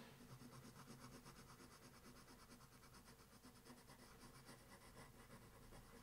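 Faint, rapid scratching of a white colored pencil on paper, light small strokes blending layered color.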